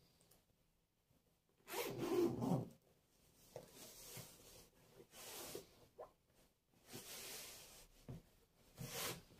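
A zipper being run along in several short pulls, with fabric rubbing and handling noise; the loudest pull comes about two seconds in.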